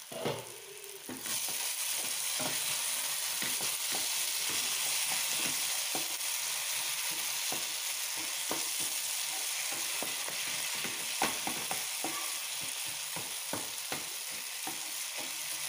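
Onion and tomato masala sizzling in hot oil in a non-stick pan while a wooden spatula stirs and scrapes through it, with many short scrapes and taps. The sizzle comes in louder about a second in.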